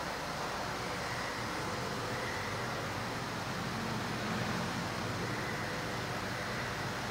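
Steady rushing background noise with a low hum underneath and no distinct events.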